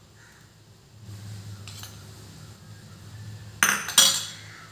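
A metal kitchen utensil clinks twice against cookware, two sharp strikes about half a second apart near the end, over a low steady hum.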